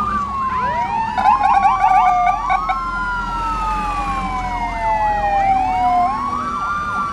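Several emergency-vehicle sirens sounding at once. Wailing tones rise quickly and slide slowly down over two to three seconds, overlapping one another, with a faster warbling siren underneath.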